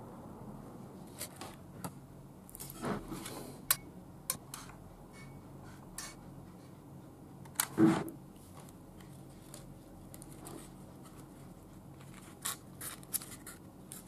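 Handling noises of plastic drinking straws and a foam boat hull: scattered light clicks and taps with a few brief rustling scrapes. The loudest rustle and knock comes about eight seconds in.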